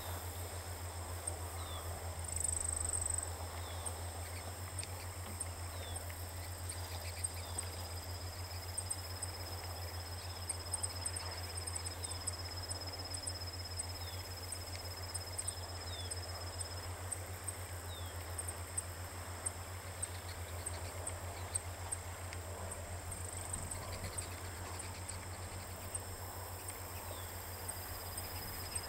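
Saffron finches giving short, high, falling call notes and sharp ticks, scattered every second or two, over a steady high insect trill and a low hum.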